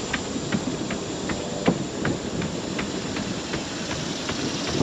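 A runner's footsteps on a wooden boardwalk, even light impacts about two and a half to three a second, over a steady hiss.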